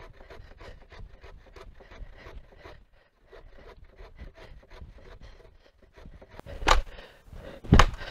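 Hand saw cutting through a log in quick, even rasping strokes, pausing briefly about three seconds in and then going on. Near the end come two loud knocks about a second apart.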